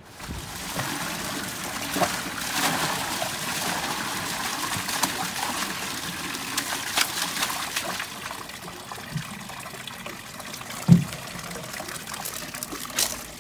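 Water pouring from a plastic bucket into a small garden pond, splashing and trickling, with one low thump about eleven seconds in.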